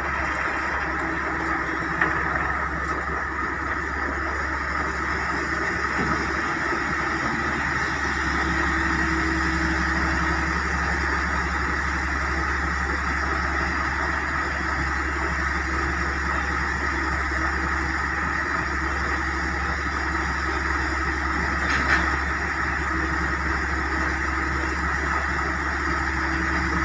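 Heavy diesel engine running steadily with a low drone, with a brief knock about two seconds in and another near the end.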